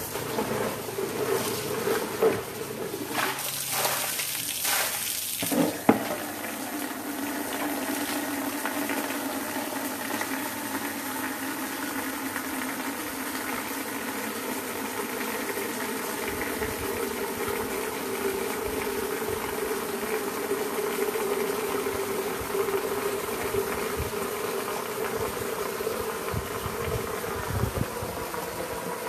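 Water splashing and pouring over a soapy dog during its bath, with a few knocks, heaviest in the first few seconds. After that comes a steady humming drone, holding several pitches.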